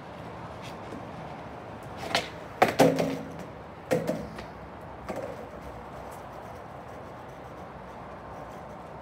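Skateboard trick attempt on paving slabs: a quick run of sharp clacks and slaps as the deck and wheels hit the ground about two to three seconds in, two more knocks a second later and a lighter one about five seconds in.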